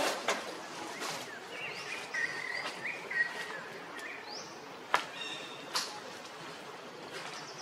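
Short high chirping and whistling animal calls, some of them rising in pitch, with a couple of sharp clicks about five and six seconds in.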